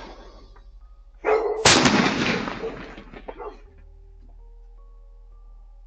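A firework going off: a short rushing burst, then a sharp bang, then about two seconds of loud noise that fades away.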